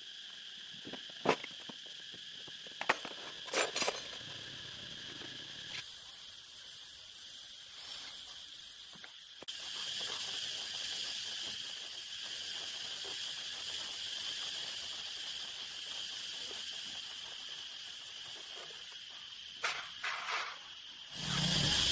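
Steady high-pitched insect chirring, which changes abruptly twice, with a few sharp clicks in the first few seconds and a low knock near the end.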